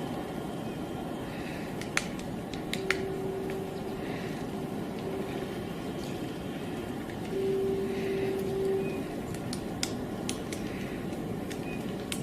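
Woodpecker pecking at wood: a handful of sharp single taps, spaced irregularly rather than in a drumming roll, over a steady background rumble. A steady low hum sounds twice in the middle.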